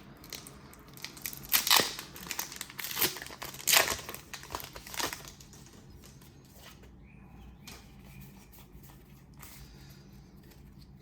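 Plastic card packaging being crinkled and torn open, with a few sharp crackles in the first five seconds, then only faint handling.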